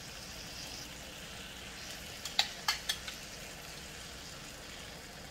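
Beef slider patties sizzling steadily in a pan, with three sharp clicks a little under halfway through.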